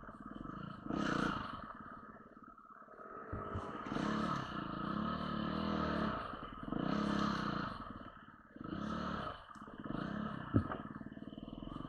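Enduro motorcycle engine revving in repeated surges, about six throttle bursts rising and falling, with one sharp knock near the end.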